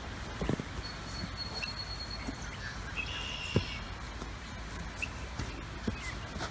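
Farmyard ambience: a steady low background with faint high chirps, two of them held for about a second, and a few soft knocks, the sharpest about three and a half seconds in.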